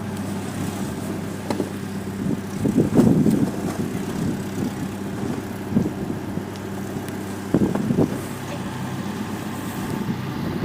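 Homemade mini-tractor's engine running steadily at idle, with a few dull knocks and thuds about three seconds in and again near eight seconds.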